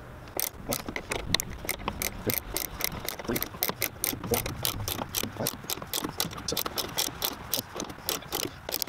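A 13 mm ratcheting combination wrench clicking in a rapid, even run as it is swung back and forth, turning a blind rivet nut (nutsert) setting tool clockwise to draw the nut up tight in the tailgate's sheet metal.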